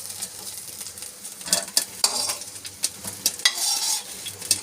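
Okra sizzling in hot oil in a kadai while a metal spoon scrapes and clinks against the pan several times, scooping the fried okra out.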